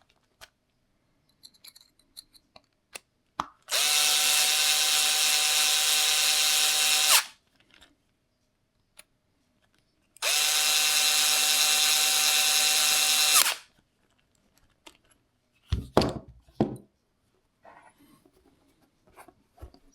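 Bosch electric screwdriver running twice, each run a steady whir of about three and a half seconds, as it drives hub bolts to an even torque through an adjustable torque adapter. Light clicks and a few knocks of handling come between the runs.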